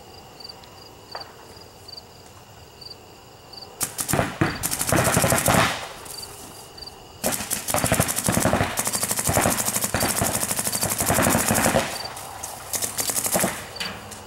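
Paintball markers firing rapid strings of shots: a first string about four seconds in, then near-continuous fire for several seconds, breaking into short bursts near the end.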